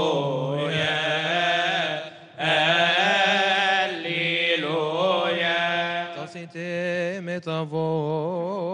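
Coptic Orthodox deacons chanting a liturgical hymn together, with long drawn-out melismatic notes that waver in pitch. There is a brief pause about two seconds in.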